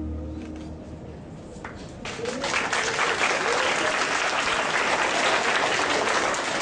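Audience applause in a hall: a few scattered claps as the music fades, then full, steady clapping from about two seconds in.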